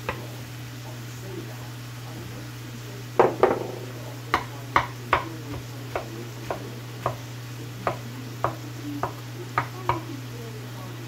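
A run of sharp, uneven taps and knocks of a kitchen utensil against cookware, about two a second, starting a few seconds in. Under them is a steady low hum.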